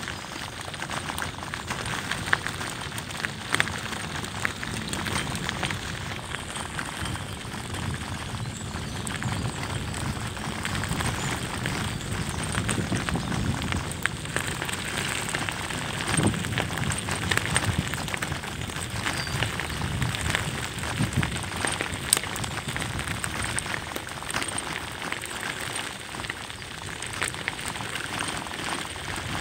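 Bicycle tyres rolling fast downhill over a gravel forest track: a continuous crunching crackle of grit under the wheels, with a few sharper ticks and knocks.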